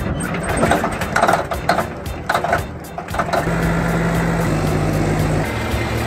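A heavy diesel engine running steadily at idle, its low hum settling in about three and a half seconds in, with a couple of abrupt shifts in pitch; the opening seconds are a busier, irregular jumble.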